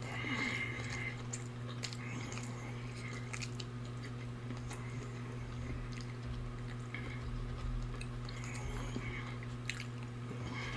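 A person chewing and biting food, scattered soft crunches and mouth clicks, over a steady low hum.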